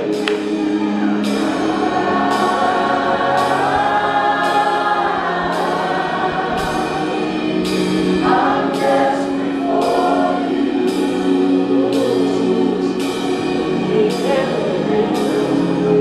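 Live gospel worship music: a lead singer and group voices singing long, held notes over band accompaniment with a steady beat.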